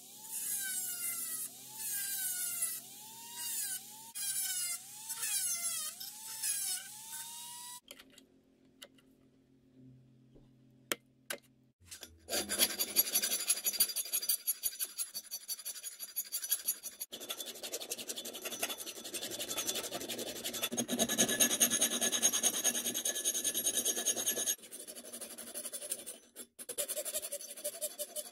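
A rotary tool with a small abrasive cut-off wheel cutting the thin steel of a table saw blade, its whine dipping and recovering in pitch over and over as the wheel bites. After a short quiet pause with a couple of clicks, a flat hand file rasps in quick strokes across the steel clamped in a vise.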